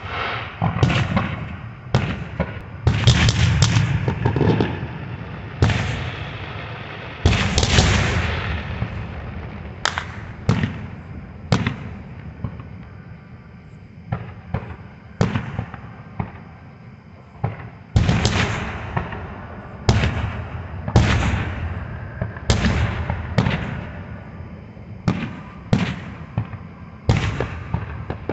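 Aerial fireworks bursting: a string of sharp booms at irregular intervals, often two or three in quick succession, each followed by a fading echo.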